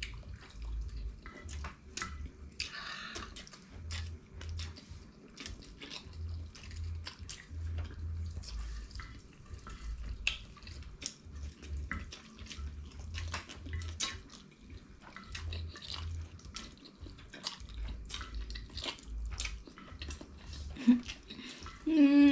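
Close-up wet eating sounds: spaghetti being chewed and slurped, with many small clicks of chopsticks against the plates. Near the end a voice starts humming.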